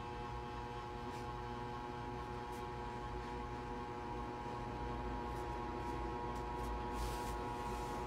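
Ceiling fan running at speed: a steady electric motor hum made of several constant tones over a low rumble.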